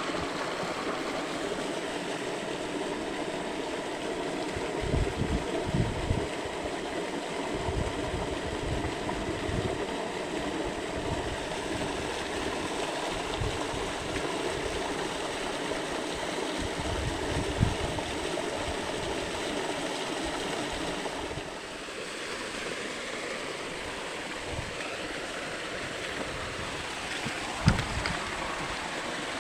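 Stream water running steadily over the shallows, with a cluster of low thumps about five to eight seconds in and a single sharp knock near the end.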